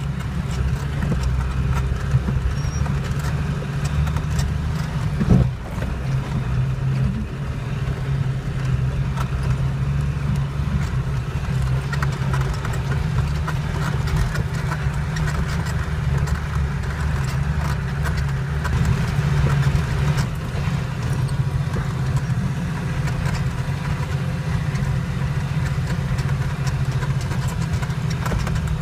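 Off-road vehicle's engine running steadily in a low drone, heard from inside the cabin while driving up a rough, stony track, with small rattles and knocks from the vehicle over the stones. One louder thump about five seconds in.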